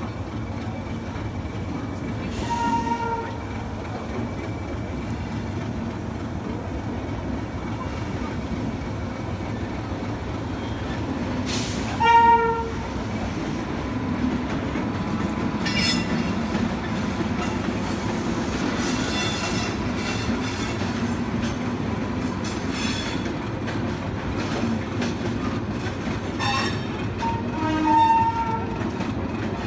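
Tamil Nadu Express departing: steady train running noise with short blasts of the locomotive horn, the loudest a few seconds in, near the middle and near the end, sounded in celebration. Fainter, higher tones come and go in between.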